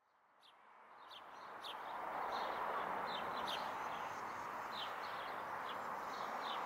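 Small birds chirping in short, repeated high notes over a steady background hiss, the whole fading in over the first two seconds.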